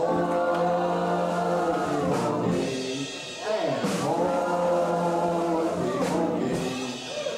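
Live dance-band music with an accordion and saxophone, voices singing along; long held chords that break off and start again twice.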